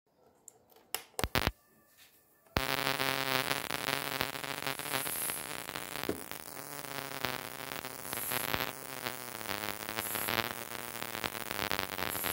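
A few sharp clicks, then about two and a half seconds in a small vacuum pump starts and runs steadily with a pitched, rapidly pulsing drone, evacuating a glass jar vacuum chamber.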